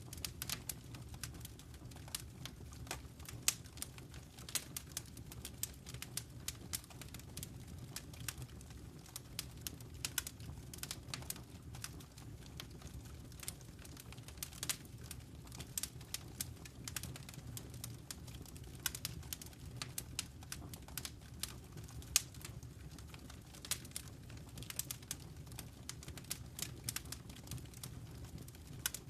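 Wood fire crackling in a fireplace: frequent irregular snaps and pops over a steady low rumble of the burning fire.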